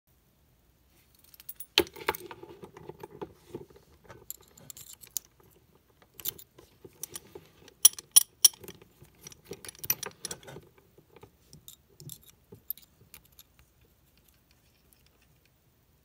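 A Sargent & Greenleaf padlock and the wire chain looped through its shackle being handled, clinking and rattling metal on metal. It starts with a sharp clink about two seconds in and rattles on and off until about eleven seconds, then thins to a few light clicks.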